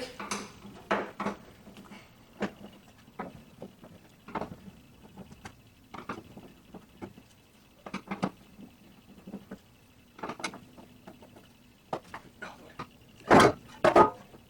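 Irregular light clicks and knocks of a screwdriver and small metal parts as the screws holding a car door's inner cover plate are undone, with two louder knocks near the end.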